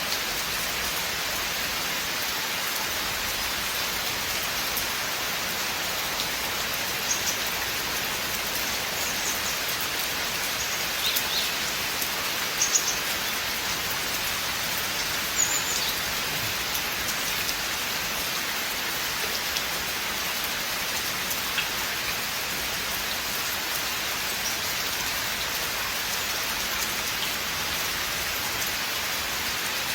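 Steady rain falling through a forest, an even hiss of drops on leaves and ground. A few brief sharper ticks stand out near the middle.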